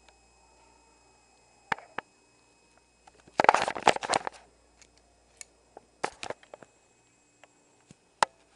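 Clicks and rattles of a Spyder Xtra paintball marker's parts being handled and pulled apart during disassembly, with a dense burst of rattling about halfway through and scattered single clicks around it.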